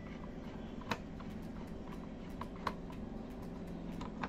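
Small, scattered clicks of a screwdriver turning a screw into a mini PC's bottom cover, the clearest about a second in, over a steady low hum.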